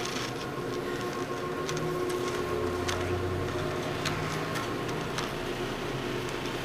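Chairlift machinery running: a steady mechanical hum with a few sharp ticks and clicks about a second apart.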